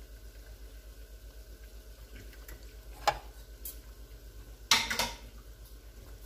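Oil sizzling steadily as plantain turnovers fry in a small pan. Two sharp clatters of kitchenware being set down on the counter, about three seconds in and again near five seconds, with a smaller click between.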